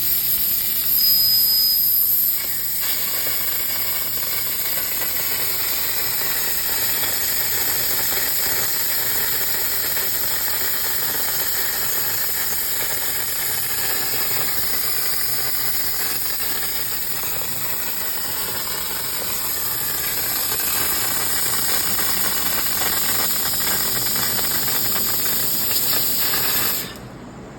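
2000-watt CNC laser cutter cutting half-inch AR500 steel plate with an oxygen assist-gas jet: a steady loud hiss. It is louder for the first couple of seconds, and stops suddenly near the end as the cut finishes.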